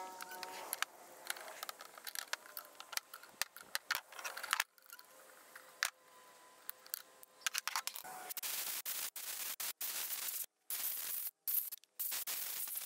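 Hand-tool work on a small engine played back eight times fast: a rapid jumble of clicks and scrapes as a wrench and fingers work the recoil starter cup on the flywheel. In the second half the sound cuts in and out abruptly.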